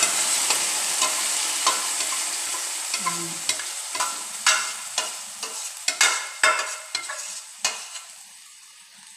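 Sizzling in a hot pan, fading steadily over several seconds as mung beans are poured in from a stainless steel pot, with many sharp metallic clicks and knocks of pot and utensils.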